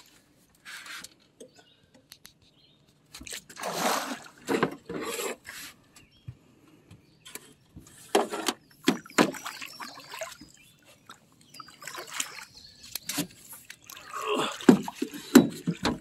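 A big flathead catfish thrashing at the water's surface alongside the boat as it is brought in and netted: several separate bursts of splashing with quiet gaps between them.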